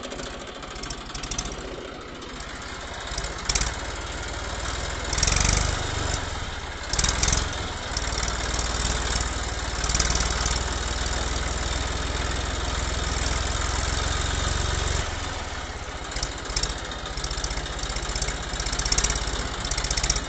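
Small motor and gears of a toy tractor running as it drives and tows a trailer through sand, a steady mechanical whirr with a stronger low rumble through the middle and a few short louder rattles.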